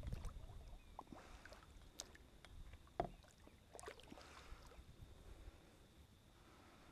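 Near silence around a plastic fishing kayak on still water: a few faint, sharp knocks about a second apart and a soft wash of water.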